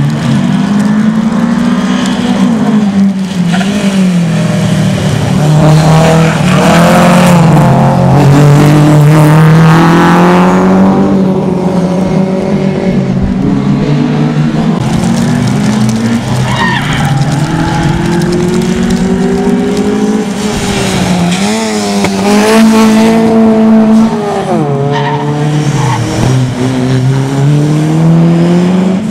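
Rally cars on a tarmac sprint stage, their engines revving hard: the pitch climbs through the gears and drops as they lift off and brake for corners, several times over, with tyre squeal as they slide.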